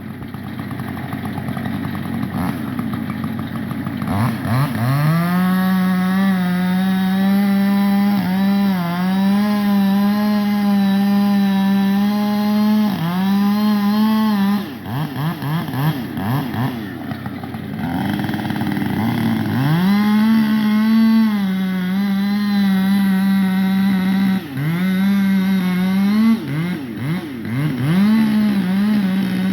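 Two-stroke chainsaw revved from a low idle up to full throttle and held there for about ten seconds, with brief dips. Around halfway it drops back to an uneven, sputtering idle, then revs up and holds again in several long pulls.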